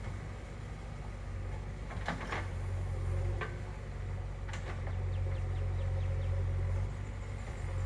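JCB 3DX backhoe loader's diesel engine running steadily at a low hum, with a few sharp metallic clanks and a brief quick run of ticks about five seconds in.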